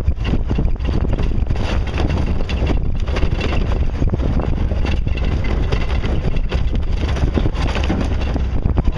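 Jeep driving over a rough, rocky trail: steady engine and tire noise, with frequent knocks and rattles from the body and suspension, and wind buffeting the microphone.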